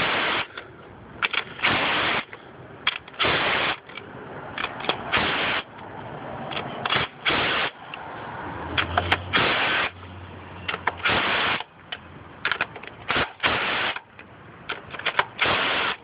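Cordless DeWalt impact driver hammering loose the 10 mm bolts on the intake manifold top, in short rattling bursts of about half a second, one every second or two.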